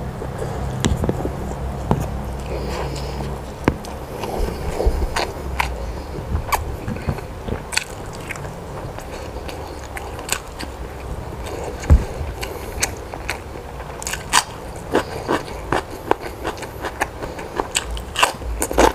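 A person eating close to the microphone: chewing and biting, with irregular crisp crunches and clicks.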